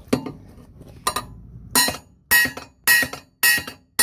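Small toffee hammer tapping a narrowboat propeller blade backed by a lump hammer, each blow a sharp metallic clink that rings briefly. The blows come singly at first, then settle into a steady rhythm of about two a second. The blade's bent edge is being knocked straight.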